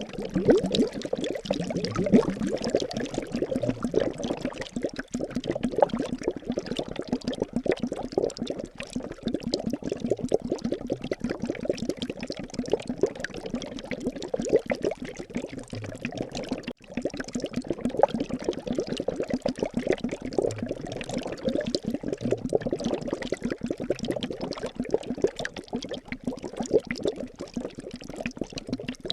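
Liquid bubbling steadily as a dense run of small pops and gurgles, cutting out for an instant about 17 seconds in.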